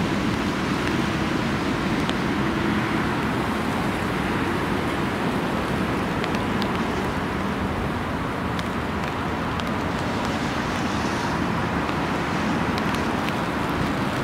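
Steady roar of storm wind and rain, with a few faint ticks scattered through it.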